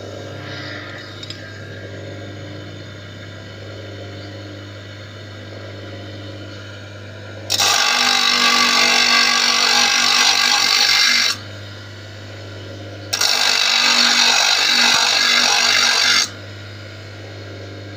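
An electric grinding motor runs steadily with a low hum. Twice, for about four seconds and then about three, the side of a motorcycle brake shoe is pressed by hand against its spinning abrasive disc, giving a loud grinding.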